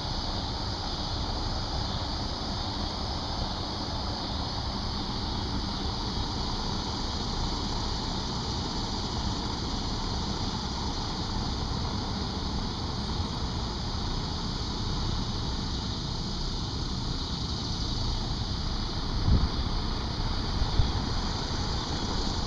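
Steady wind noise buffeting the microphone, a low flickering rumble under a constant hiss, with a couple of stronger gusts near the end.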